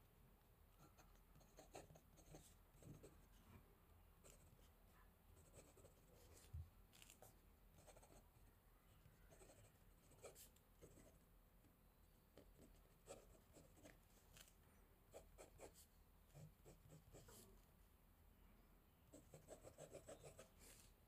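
Fountain pen with a left oblique nib scratching faintly across paper as it writes, in many short strokes. There is a quicker run of short scratches near the end.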